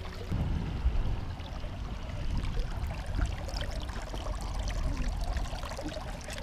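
Lake water splashing and sloshing around the boat's transom and outboard lower unit, with a low wind rumble on the microphone and a few small knocks as the motor is handled.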